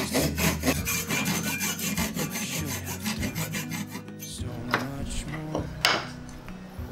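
Fine-toothed hand saw cutting through a thin wooden batten held in a bench vise: quick, regular back-and-forth rasping strokes that stop about four seconds in. A few light knocks follow.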